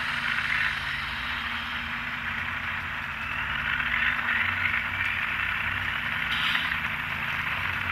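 N scale model freight train running past, the cars giving a steady rolling noise on the track with a low steady hum underneath.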